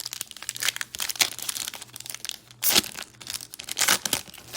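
Foil trading-card pack wrapper crinkling and tearing as a pack is opened and cards are handled, with two louder sharp crackles in the second half.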